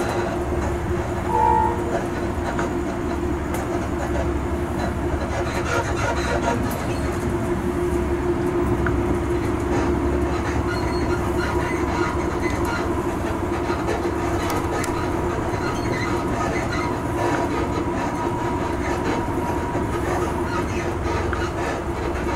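A train running at a steady speed: a continuous rumble with a steady hum over it.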